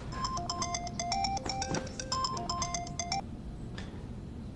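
Mobile phone ringtone: a quick, bright melody of short notes lasting about three seconds, then stopping.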